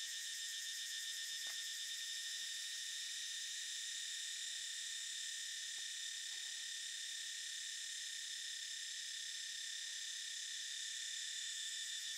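A steady, high-pitched chorus of insects chirring without a break. A couple of faint soft taps come about a second and a half in and again around six seconds, as hands rub seasoning into the raw salmon on a wooden board.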